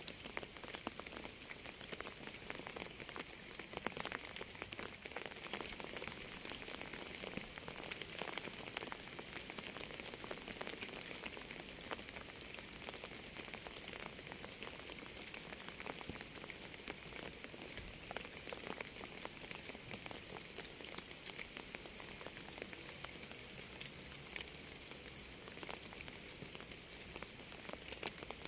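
Steady rain falling: a dense, irregular patter of drops striking a surface over an even hiss.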